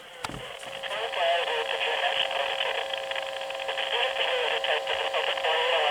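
Weather radio receiver audio: a click about a quarter second in, then steady radio hiss held to a narrow voice band and growing louder, with a very faint, barely audible announcer's voice wavering under the noise.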